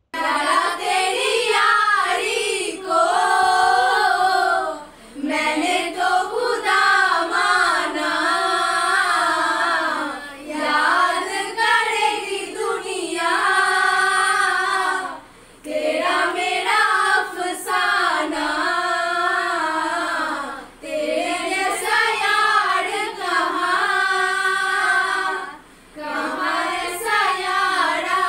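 A group of young women singing a song together, in phrases broken by short pauses about every five seconds.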